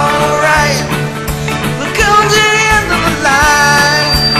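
A rock song with a singer holding long, sliding notes over a steady drum beat and guitar.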